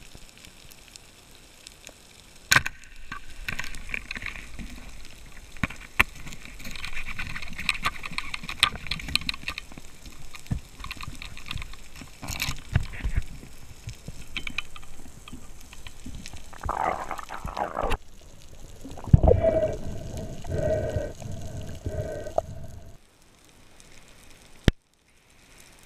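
Underwater sound picked up by an action camera in its waterproof housing while freediving over a coral reef: a constant crackling hiss with scattered sharp clicks and knocks. In the last third there are a few seconds of louder rumbling and a humming tone.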